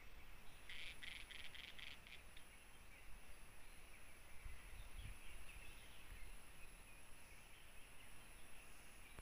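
Quiet forest ambience: a steady high-pitched insect drone, a quick run of about six short chirping notes about a second in, then scattered faint chirps, over a low rumble.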